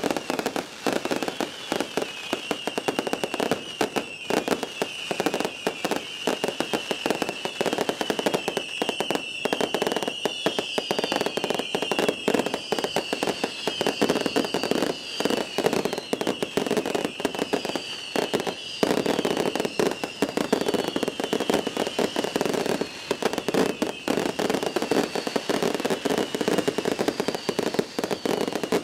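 Fireworks finale barrage: rapid, continuous bangs and crackling, over a wavering high whine with short falling whistles repeating from about ten seconds in.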